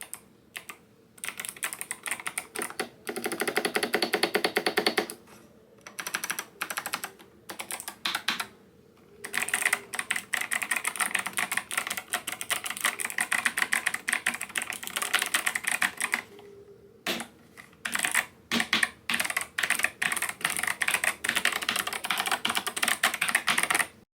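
Typing sound test on an 8BitDo retro mechanical keyboard with clicky tactile white switches. A few single keystrokes come first, then fast runs of typing broken by short pauses.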